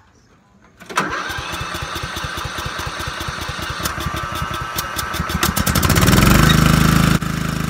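Riding lawnmower's small petrol engine starting up: it begins suddenly about a second in with an even chugging that quickens steadily, then catches and runs fast and loud from about six seconds in. The level drops abruptly near the end.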